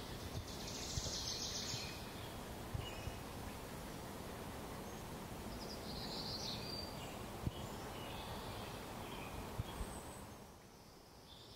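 Faint outdoor ambience with birds chirping and trilling in the background, falling almost to silence near the end.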